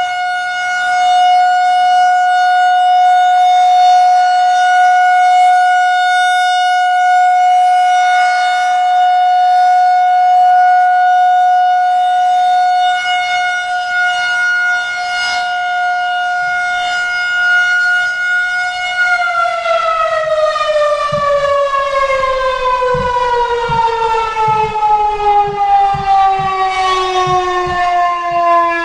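Federal Signal 2001-130 rotating electromechanical siren sounding a steady single-tone full alert. About 19 seconds in it is switched off and winds down, its pitch falling steadily.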